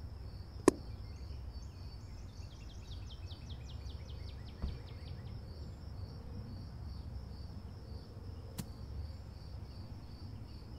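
A single sharp shot from a 9mm EDgun Leshiy 2 PCP airgun about a second in, over steady insect chirping. A quick falling run of chirps follows around the third and fourth seconds.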